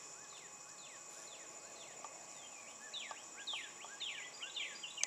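Wild birds chirping in the background: clusters of short notes that each sweep down in pitch, coming thick in the second half, over a steady high insect drone.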